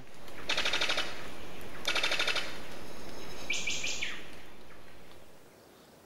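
Brown sicklebill's machine-gun-like call: two bursts of rapid dry pulses, each under a second long, about a second apart.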